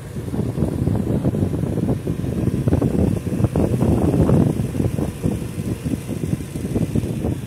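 Wind buffeting the microphone, heard as a dense, gusty low rumble with rapid irregular thumps, over the low running noise of a vehicle; it swells loudest a little past the middle.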